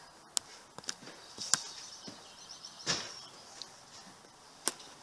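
Five or so sharp, short clicks and knocks at irregular intervals, with faint high bird chirping in between.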